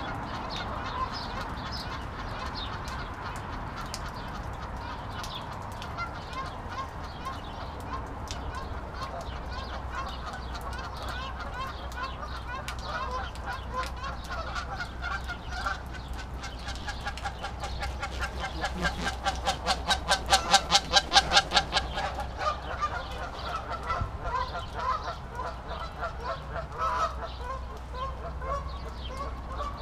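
Birds calling: many short pitched calls overlapping. About two-thirds of the way through comes a loud run of rapid calls, about four a second. A low steady rumble lies underneath.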